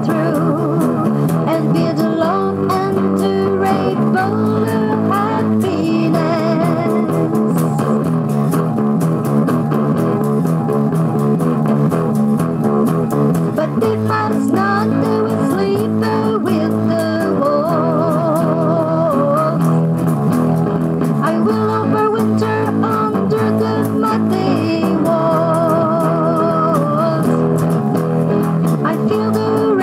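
Music: a song led by electric guitar over bass guitar, playing steadily. A wavering lead melody comes in a little past the middle and again near the end.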